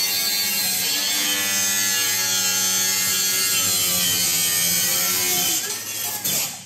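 Angle grinder with a cut-off wheel cutting through a steel exhaust pipe, a steady high motor whine with grinding that eases off in the last second as the cut finishes.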